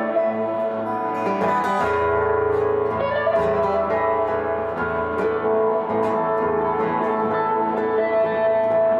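Live acoustic and electric guitars playing an instrumental passage together, with held notes ringing over plucked chords and no singing.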